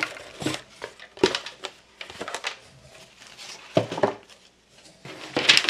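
Cardboard packaging being handled: a box insert lifted and moved, with scattered knocks and scrapes, then a louder rustle of packaging near the end.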